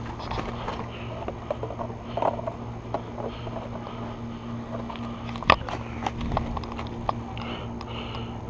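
Scattered clicks and knocks from gear and movement at a body-worn camera, over a steady low hum, with one sharp crack about five and a half seconds in.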